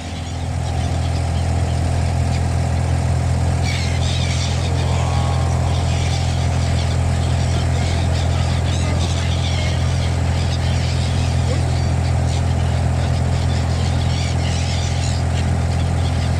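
A steady low engine hum, like a vehicle idling, with many birds chirping high above it from about four seconds in.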